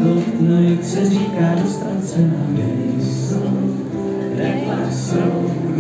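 Live acoustic song: a mandolin being played with men's voices singing over it.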